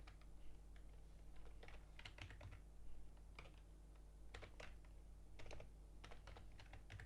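Computer keyboard typing, faint, in short irregular runs of keystrokes, over a steady low hum.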